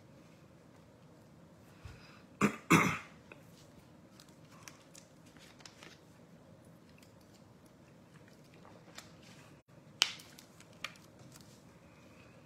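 A man coughs twice in quick succession, about two and a half seconds in. About ten seconds in there is a sharp click, then a fainter one, over quiet room tone.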